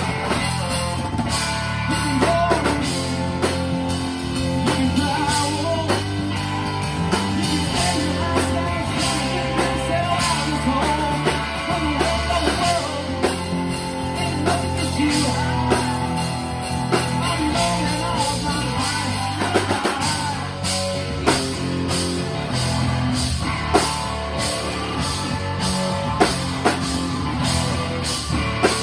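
Live rock band playing a song: electric guitar, bass guitar, electric keyboard and a drum kit, with singing at times.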